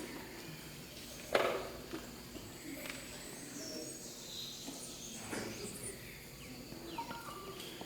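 Faint birdsong from a field recording, short high chirps and calls, played back in an electroacoustic track. Two dull knocks come about a second and a half in and again just past five seconds.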